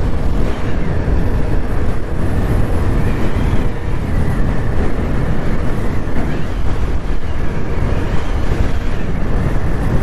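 Steady running noise of a vehicle on the move: engine and road noise with a heavy low rumble, unbroken throughout.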